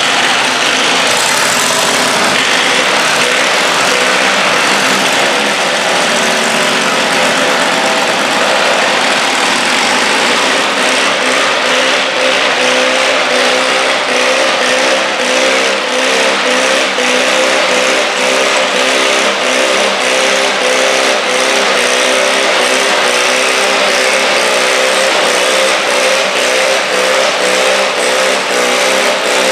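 Stock garden tractor's engine running hard under load as it drags a weighted stoneboat sled across a dirt floor. The note stays steady, with a slight waver in pitch.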